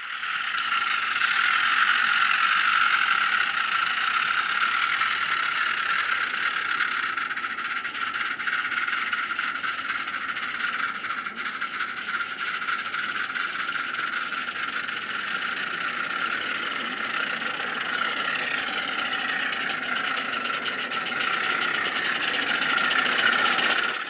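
Small live-steam garden-railway locomotive working hard as it pushes a wedge snowplow through deep snow: a steady, high-pitched steam hiss with a fast rattle of exhaust beats running through it.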